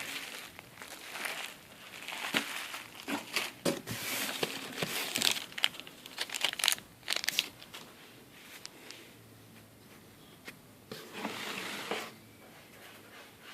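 Plastic packaging being handled and unwrapped: crinkling and tearing with small knocks, busiest in the first half, then a quieter stretch and one more short burst of crinkling near the end.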